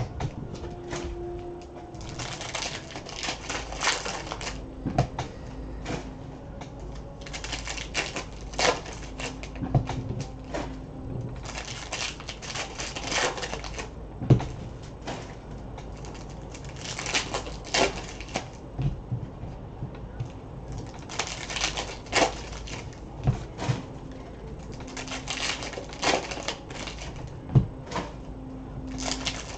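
2019-20 Prizm basketball card packs being torn open by hand and the cards flicked and stacked, in bursts of crinkling and rapid clicking every few seconds.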